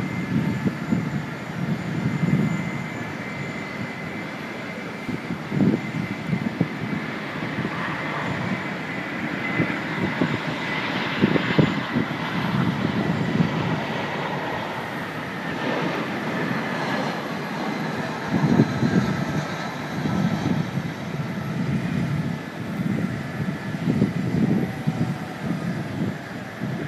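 British Airways Airbus A380's four Rolls-Royce Trent 900 turbofans running at taxi power as the jet taxis, a steady jet roar with a thin high whine that grows stronger toward the middle. Irregular low rumbling gusts run underneath.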